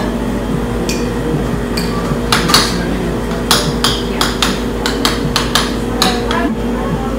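A quick, irregular run of sharp knocks and clatters, roughly a dozen strikes, beginning about two seconds in, over a steady electrical hum.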